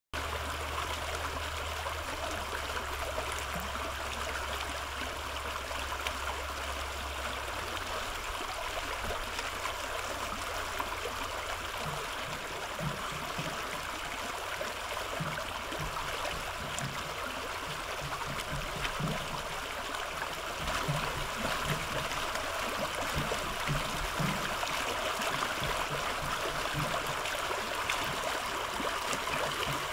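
Shallow brook flowing over rocks, water spilling over a stone in a steady splashing rush. Short low gurgles join in from about twelve seconds on.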